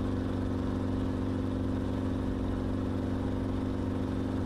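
Enstrom helicopter in flight: the steady drone of its engine and rotors, an even stack of low hums over a rushing noise.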